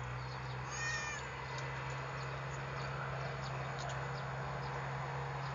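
A domestic cat gives one short, high meow about a second in, over a steady low hum.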